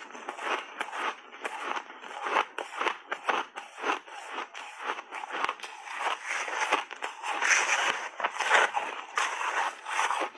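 Shaved ice dusted with matcha powder being chewed right at a lapel microphone: a dense, uneven run of crisp crunches, several a second.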